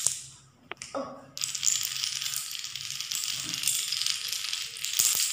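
A long chain of small coloured dominoes toppling one after another on a tiled floor. A few separate clicks come as the first ones are pushed, then a dense, rapid clatter of tiny clicks from about a second and a half in.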